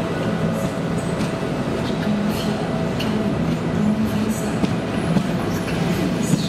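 A train of CP Arco passenger coaches rolling slowly past on the rails, a steady rumble and hum with a few brief high squeaks and clicks from the wheels.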